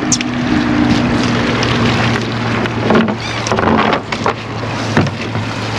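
Boat motor running with a steady hum, under wind noise on the microphone, with a few short knocks.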